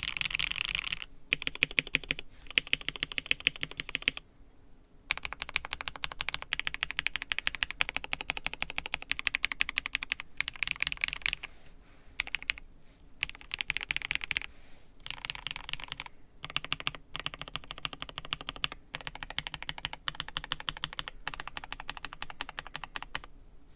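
Fast typing on a KBD67 Lite mechanical keyboard with lubed and filmed HK Pro Marlin Blue switches and GMK Pulse keycaps, in dense runs of rapid key clacks with brief pauses between bursts.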